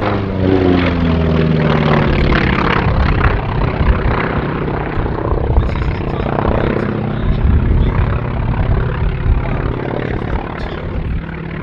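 Grumman Wildcat's radial engine and propeller in aerobatic flight overhead: the engine note falls in pitch over the first couple of seconds, then holds steady.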